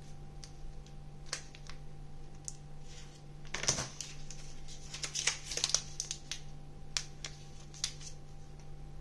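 Plastic candy-bar wrappers and food packaging rustling and crinkling as they are handled, with a louder rustle about three and a half seconds in and a cluster of crinkles around five to six seconds. A steady low hum sits underneath.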